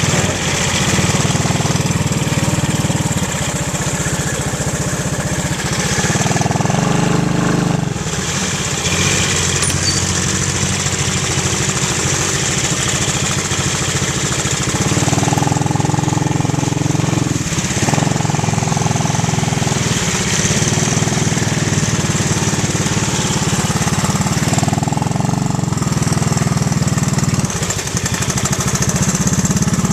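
Small ATV engine running continuously, its note shifting now and then as the throttle changes.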